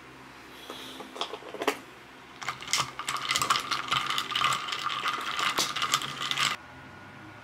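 Ice cubes clinking against a glass jar as iced coffee is stirred with a straw. A few separate clinks come first, then about four seconds of rapid, continuous clinking that stops abruptly.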